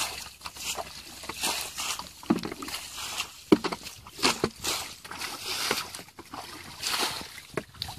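Plastic bucket scooping and pouring out muddy water while bailing a shallow ditch: repeated, irregular sloshes and splashes.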